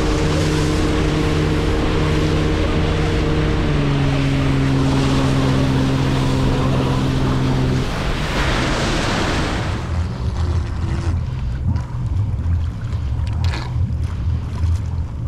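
A boat engine drones steadily, dropping slightly in pitch about four seconds in and cutting off abruptly a few seconds later. Then water rushing along a moving hull, with wind buffeting the microphone.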